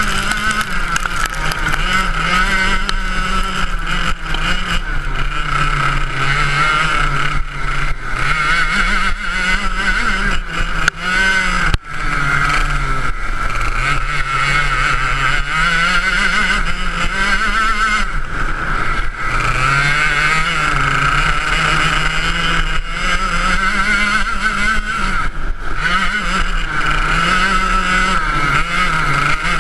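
Go-kart engine heard close up from onboard, running hard on an ice track. Its pitch rises and falls over and over as the driver accelerates out of corners and lifts off going into them.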